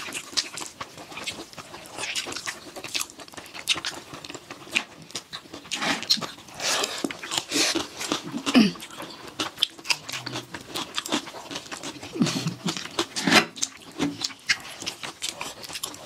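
Close-miked eating: two people chewing and smacking their lips on mouthfuls of fried rice eaten by hand, a dense run of wet clicks and smacks. A short falling hum about eight and a half seconds in, and another near twelve seconds.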